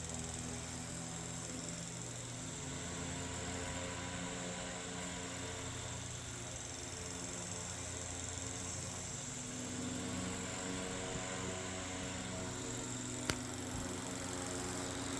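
Circa-1910 Eck Tigre Hurricane ball-motor oscillating fan running steadily, a constant motor hum with a whir of air, and a single sharp click about thirteen seconds in.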